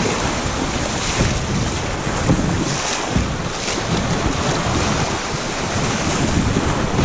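River rapids rushing and splashing against a kayak's hull as it runs a chute, with wind buffeting the microphone. It is a steady, loud rush of noise with no clear single events.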